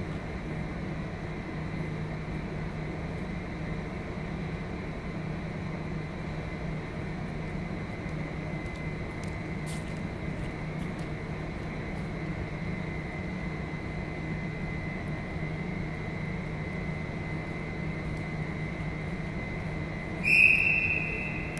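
Steady hum and hiss of a gymnasium's ventilation, with a thin high whine running under it. Near the end, a loud high-pitched tone sounds for about a second.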